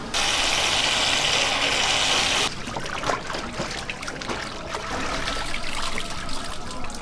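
A loud, steady rush of water for about two seconds that cuts off suddenly. Then tap water splashes into a plastic basin while pork intestines are swished and rubbed clean in it by gloved hands.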